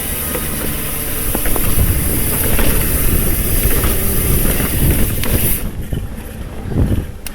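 Trek Fuel EX full-suspension mountain bike riding over rough trail: a loud rush of tyre and ground noise with constant small knocks and rattles from the bike. The high hiss drops away about three-quarters of the way through.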